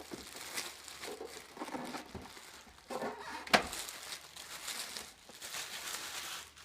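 Plastic packaging crinkling and rustling as a vacuum sealer and its bag rolls are unpacked by hand, with one sharp click about three and a half seconds in.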